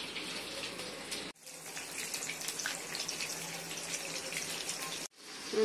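Batter-coated mushrooms deep-frying in hot oil in a kadai: a steady sizzle with fine crackles as the water in the mushrooms boils off, the sign that they are not yet fully cooked. The sound cuts out briefly twice.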